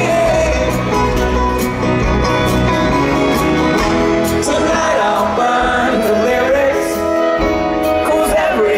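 Live acoustic bluegrass-folk band playing: banjo, acoustic guitar, cello, upright bass and fiddle, with singing over the instruments.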